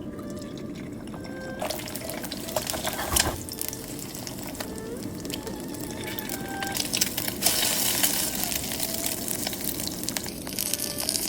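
Water pouring in two spells, a short one about two seconds in and a longer one from about seven seconds in.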